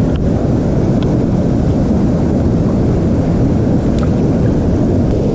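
Water pouring into a creek, a loud, steady rushing with a few faint ticks.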